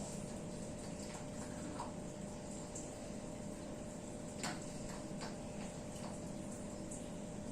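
Quiet room noise with a steady faint hum and a few small clicks, the sharpest about four and a half seconds in.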